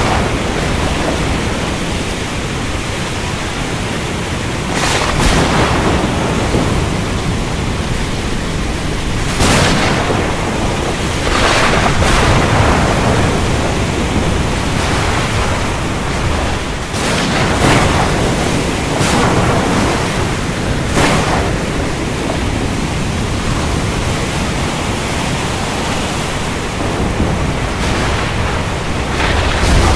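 Thunderstorm at sea: a steady, loud hiss of rain and wind over a low rumble of thunder. About eight brief, sharper cracks are scattered through it.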